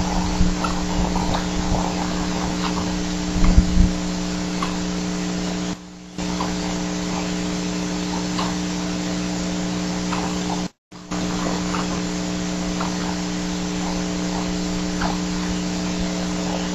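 Steady electrical hum of several fixed tones in a nest camera's audio feed, with faint scattered ticks. It dips briefly about six seconds in and cuts out for a moment about eleven seconds in.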